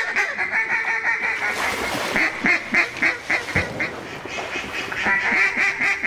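Mallard quacking in quick runs of short notes, about five a second, easing off a little past halfway and picking up again near the end.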